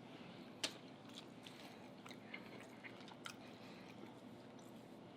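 Faint close-miked chewing of a mouthful of meatloaf, with a few soft clicks of the mouth.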